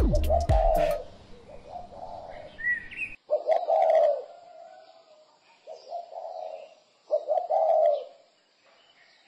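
A dove cooing in several separate phrases a second or two apart. Background music stops about a second in.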